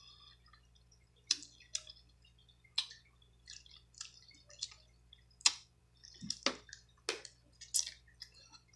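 Cooked blue crab shell being picked apart by hand: about ten irregular sharp cracks and wet clicks of sauce-coated shell and meat.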